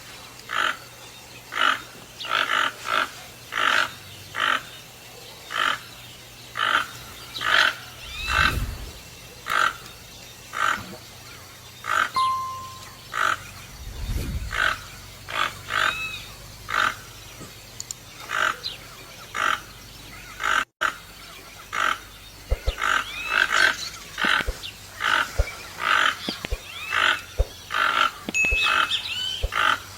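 Toucan calling: a long series of short, repeated calls, about one to two a second, coming faster in the last third.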